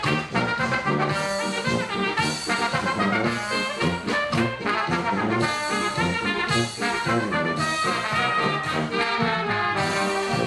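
Oompah band music, with brass instruments carrying the tune, playing without a break.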